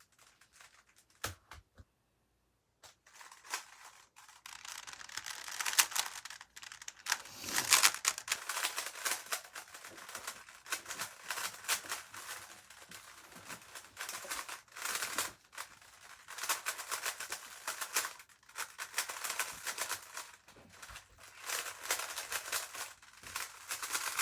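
Rapid plastic clicking and clacking of a GAN 356 RS speedcube's layers being turned fast during a timed solve. For the first few seconds there are only a couple of isolated clicks; from about four seconds in the turning is dense and continuous.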